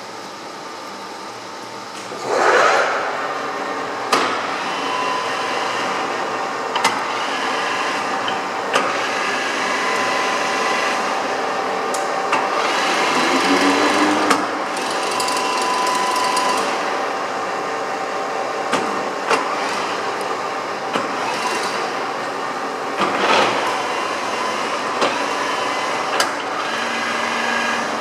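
EST Ticino ET BM 420 sliding-bed lathe running a facing cut, its headstock gears whining steadily, with sharp ticks every second or two. A louder surge about two seconds in.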